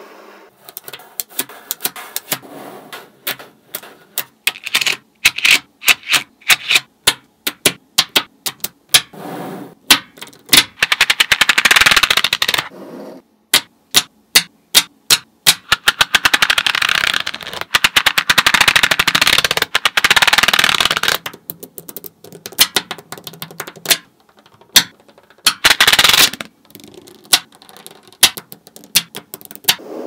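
Small magnetic balls clicking and snapping onto one another as rows are pressed into a flat slab, with runs of rapid rattling clicks as strips of balls slide off a plastic scraper into place.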